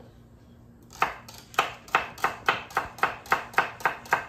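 Large kitchen knife chopping celery on a wooden cutting board: steady, even strokes about three to four a second, starting about a second in.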